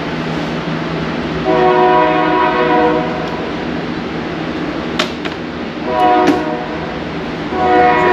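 A locomotive's multi-chime air horn sounds a chord of several notes: a long blast, a short one a few seconds later, then another long blast starting near the end, over a steady rumble. Two sharp clicks fall between the blasts.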